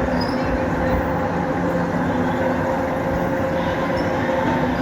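Amusement park ride machinery running with a steady mechanical hum and rumble.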